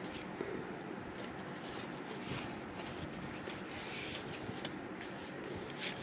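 Faint, scattered rustling and rubbing of paper and cardstock as hands press and smooth a glued paper strip onto a card panel, with a tissue rubbed over it.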